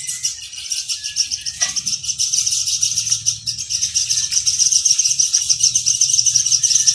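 A steady, high-pitched, rapidly pulsing chirring chorus of small animals, growing louder about four seconds in, with a few faint chirps beneath it.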